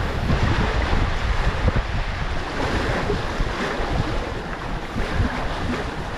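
Wind buffeting the microphone over the steady rush and splash of water along the hull of a Hobie Wave catamaran sailing fast through chop.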